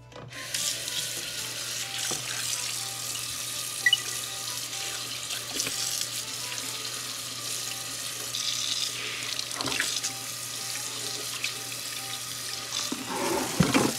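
Water running steadily from a kitchen tap into a sink as pieces of cuttlefish are rinsed under it. It starts about half a second in, with a few light knocks of handling, the last near the end.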